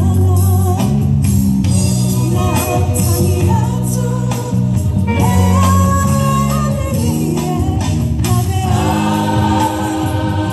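Choir singing a Christmas carol with instrumental backing.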